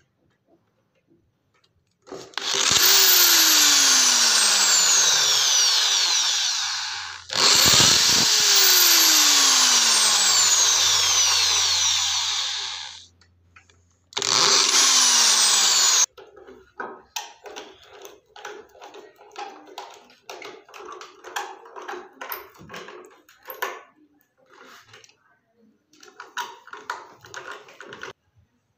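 Electric drill boring small pilot holes into the wooden side of a drawer in three bursts, its whine falling in pitch during each run. From about halfway on, a hand screwdriver drives small screws through a drawer slide rail into the wood, making a string of short, irregular scrapes and creaks.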